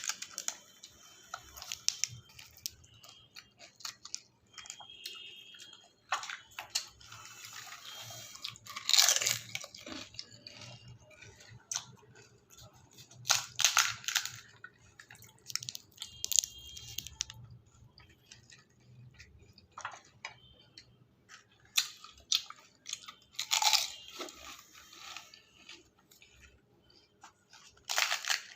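Close-miked eating of golgappa (pani puri): crisp hollow shells crunching as they are bitten, with chewing in between. A few loud crunches stand out, spread through the stretch, among many small mouth clicks.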